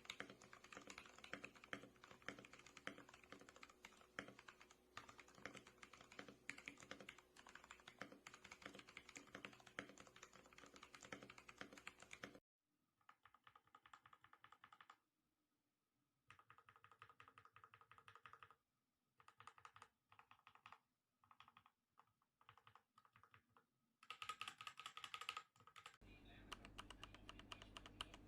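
Faint typing on a mechanical keyboard with Gateron Milky Yellow Pro linear switches. The keystrokes are continuous and rapid for about twelve seconds, then come in short bursts with pauses between them. A low steady hum joins near the end.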